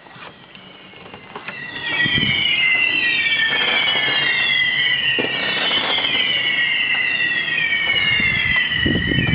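Fireworks whistling: many shrill whistles overlapping and gliding up and down, setting in about two seconds in, with a few cracks among them and a rumble of low noise near the end.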